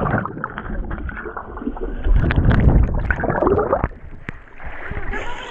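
Pool water heard through a submerged GoPro: muffled gurgling, bubbling and rushing water, with louder surges in the middle. The camera breaks the surface near the end and the sound turns brighter and splashier.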